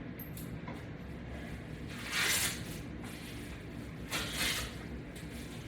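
A man breathing out hard between exercises, two short hissing exhalations about two seconds apart, with fainter breaths near the end.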